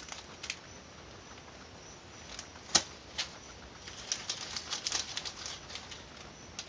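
A small plastic bag of thermoplastic colour pellets being handled, crinkling and rustling in bursts, with scattered light clicks. One sharp click a little under three seconds in is the loudest sound, and a thicker run of rustling comes about four to five seconds in.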